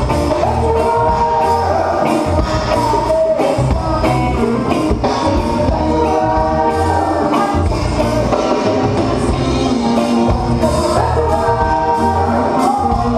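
Live reggae band playing with sung vocals over electric guitar, bass and drums, with a steady beat.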